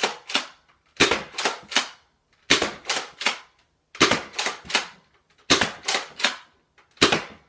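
Nerf dart blaster being primed and fired again and again. Each shot is a tight cluster of three or four sharp plastic clacks, one about every second and a half.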